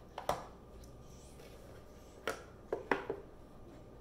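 Light clicks and taps of cardboard camera packaging being handled: a white paperboard box and its inserts knocked and set down. A double click comes near the start, then a quick run of about four taps some two seconds later.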